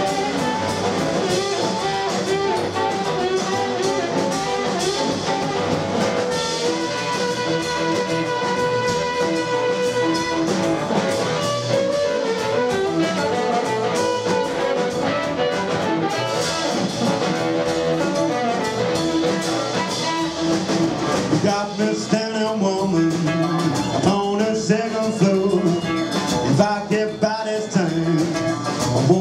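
Live blues band playing an instrumental break: an amplified blues harmonica solo over electric guitar, double bass and drums. The harmonica holds one long note about seven seconds in, then plays bending, wavering phrases near the end.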